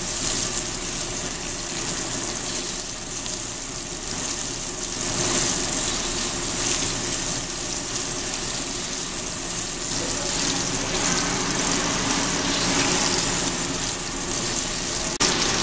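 Two veal chops sizzling steadily in an oiled cast iron grill pan over a gas burner on high, searing their first side.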